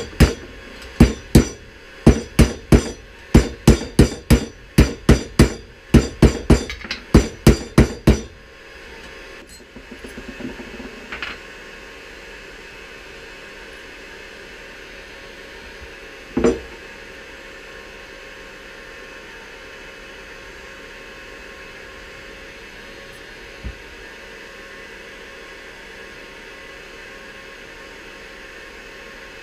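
Hammer tapping on a BMW R1200GS final drive housing: about twenty sharp taps, two to three a second, that stop after about eight seconds. A single knock follows about halfway through.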